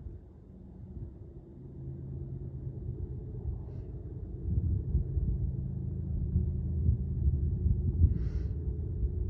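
Low rumble of distant GE ES44AC diesel locomotives working hard up a steep grade with a loaded coal train, with a steady engine drone that grows louder as the train approaches.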